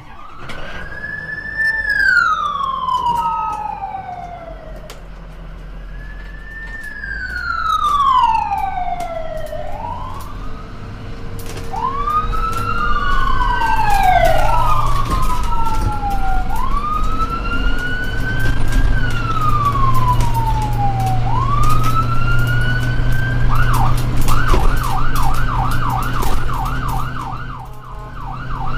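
Ambulance siren sounding, first in slow rising-and-falling wails, with two wails overlapping around the middle. Near the end it switches to a fast yelp of about three cycles a second, over a steady low hum.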